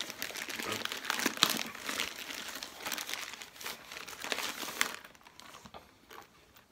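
Plastic parcel packaging crinkling and rustling in the hands as it is opened and a glasses case is pulled out of it. The crinkling stops about five seconds in, leaving only faint handling sounds.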